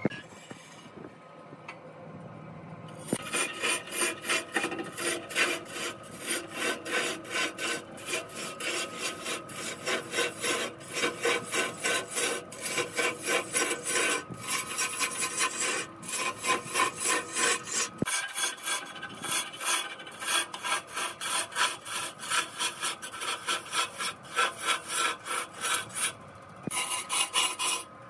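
A steel turning tool scraping and cutting into a large log spinning on a wood lathe, peeling off long shavings. The rasping pulses rhythmically, two or three times a second. It starts in earnest about three seconds in and eases off briefly near the end.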